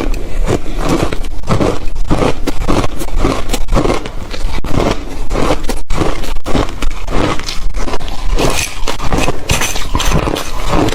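Ice being bitten and chewed close to the microphone: loud, rapid, irregular crunching, with a brief break about six seconds in.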